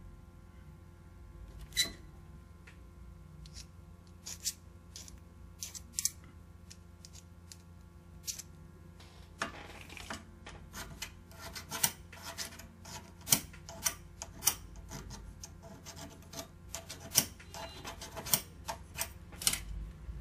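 Scattered sharp clicks and light clatter of small hand tools being handled, sparse at first and coming thick and fast from about halfway through, over a faint steady hum.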